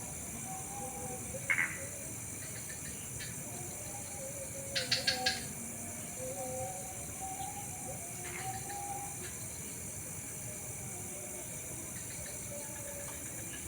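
Night garden ambience: a steady high-pitched chorus of night insects. A short chirp comes about one and a half seconds in, and a quick run of four chirps about five seconds in. Faint wavering low tones run underneath.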